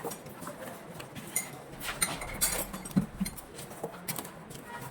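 Irregular metallic clinks and taps of hand tools and engine parts being handled, with a sharper knock about 3 seconds in.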